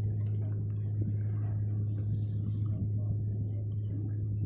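Steady low hum of a fishing boat's engine, with faint scattered clicks and knocks on top.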